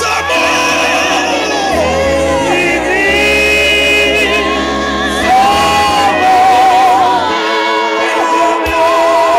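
Live gospel music: voices sing long, wavering notes over a steady low bass accompaniment, which drops out about seven seconds in.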